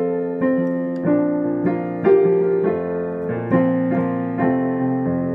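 Piano playing the introduction to a children's school song: chords and a melody with a new note or chord struck about every half second, in a steady beat.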